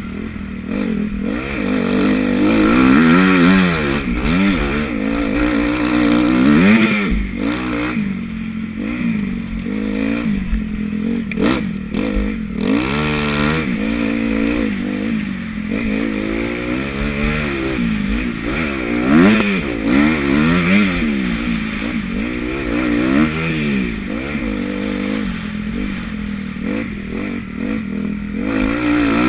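Motocross bike engine, heard from the rider's helmet, revving up and down over and over as the throttle is opened and closed and the gears change through a lap, with a few knocks around the middle.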